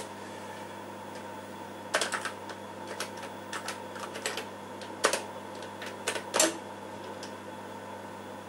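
Keystrokes on a TRS-80 Model II computer keyboard, about a dozen sharp clicks, single and in quick pairs, entering a CP/M erase command and a "y" confirmation. A steady low hum runs beneath.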